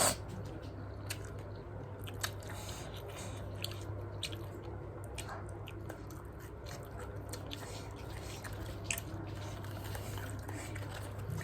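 Someone biting and chewing cabbage, with scattered crunches and soft clicks over a steady low hum.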